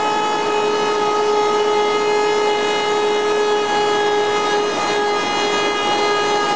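Murka KBLF 200 cup-cutting machine running steadily, its rotating cutters milling a cup notch into a profiled log beam. It gives a constant high whine over a rough, rasping cutting noise, with wood chips flying.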